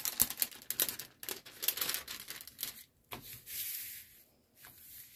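Clear plastic protective film on a diamond-painting canvas crinkling as it is peeled back by hand, a quick run of crackles for about three seconds, then a brief soft rub as the canvas is smoothed flat.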